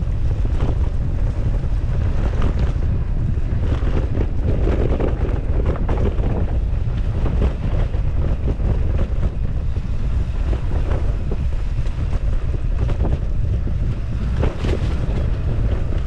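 Wind buffeting the microphone of a camera on a mountain bike riding fast downhill, a steady heavy rumble, with the tyres rolling over dirt and leaves and scattered clicks and rattles from the bike.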